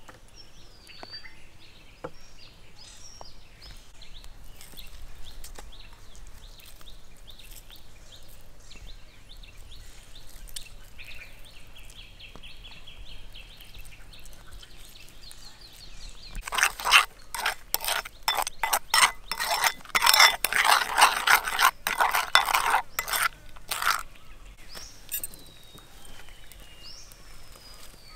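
Birds calling with short whistled chirps and a brief fast trill, then for about seven seconds in the middle a loud run of rapid scraping and knocking.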